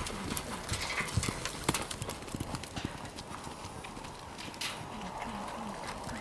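A horse galloping in a barrel-racing run, its hooves striking the arena dirt in a fast, uneven run of hoofbeats. The beats come thickly at first and thin out over the second half.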